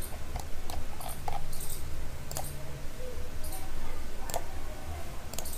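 Computer mouse clicking, scattered single clicks about once a second, over a low steady hum.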